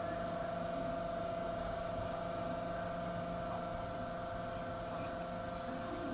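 Hydraulic power unit of a precast segment inner mould running with a steady hum made of several held tones, driving the mould's hydraulic movement.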